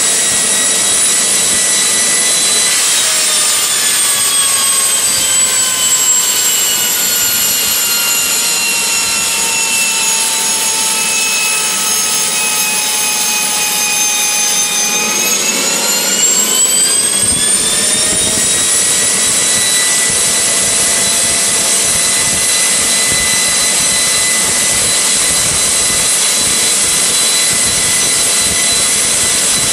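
AiResearch Garrett GTP70-9 turboshaft engine running with a steady high turbine whine. About three seconds in, the whine slowly sags in pitch for some twelve seconds, then climbs quickly back to its earlier pitch and holds steady.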